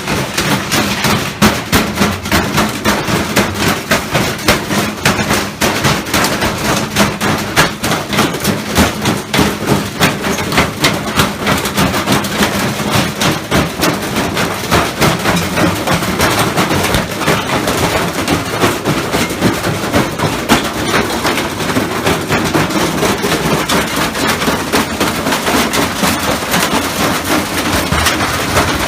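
A washing machine running with a load of heavy, hard objects loose in the drum, banging and rattling in rapid, nonstop knocks. The pounding is the sign of a badly unbalanced, destructive load.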